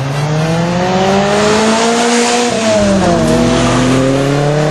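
Sports car engine accelerating past, its note climbing, dropping at a gear change about three seconds in, then climbing again, with a rush of road noise loudest as it goes by.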